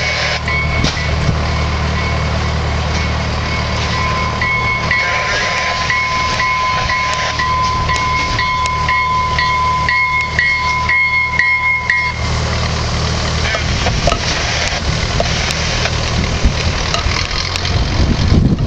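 Train warning bell ringing with strokes about twice a second over a steady low rumble as an AMT bi-level commuter train pulls into the station; the bell stops abruptly about twelve seconds in, and the train's rumble carries on as it passes.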